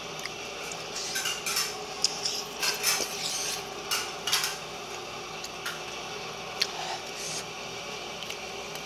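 Close-up eating sounds of a long, chewy rice cake (garae-tteok) in tteokbokki sauce being bitten off and chewed: a run of short, wet mouth noises in the first half, then quieter chewing with a few light clicks of a fork against a plastic bowl.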